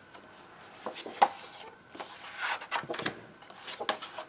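Sheets of 6x6 patterned paper being shuffled and slid over one another on a desk: soft rustling and rubbing with a few light taps.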